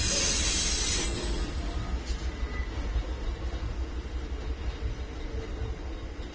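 Amtrak passenger train with several GE Genesis diesel locomotives passing: a high-pitched wheel squeal for about the first second, then the low rumble of the engines and rolling cars, slowly growing fainter.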